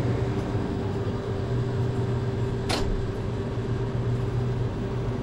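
Steady mechanical hum, with one short sharp noise about two and a half seconds in.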